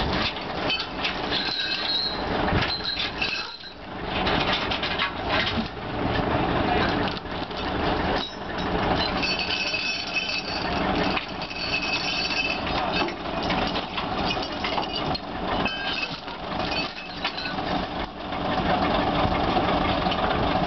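A heavy diesel recovery truck running, with steel chains and winch cable clanking and scraping irregularly on the asphalt as they are dragged into place.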